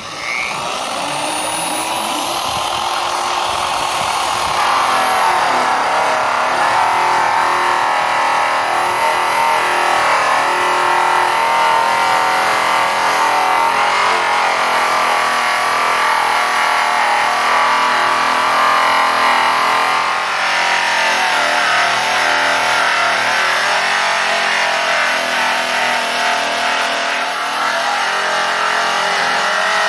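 Electric angle grinder fitted with a buffing wheel starting up with a high whine, then running steadily while buffing a hammered copper and brass panel. From about five seconds in, the rubbing hiss of the wheel against the metal fills in under the motor whine.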